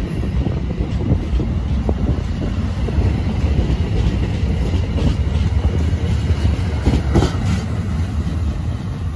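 NJ Transit Multilevel double-deck commuter coaches rolling past close by at speed: a steady rumble of steel wheels on rail. There is a brief sharper clatter about seven seconds in, and the noise begins to ease near the end as the rear cab car passes.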